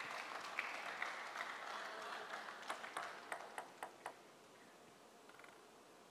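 Arena applause dying away, with a run of about six light, sharp table tennis ball clicks near the middle that come closer together, like a ball bouncing to rest.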